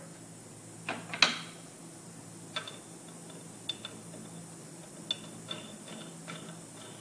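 Scattered sharp metal clicks and ticks as a National brake-shoe riveting machine is put back together and its round head cover is turned on by hand, the loudest click about a second in. A faint steady hum sits under it.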